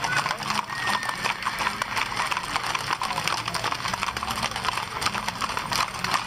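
Hooves of a number of horses clip-clopping as they pass, a dense, irregular clatter of knocks with no break.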